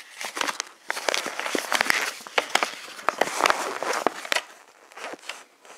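Folded paper instruction sheets being opened out and handled against a clear plastic case: crackling paper rustles with sharp clicks, dying down after about four and a half seconds.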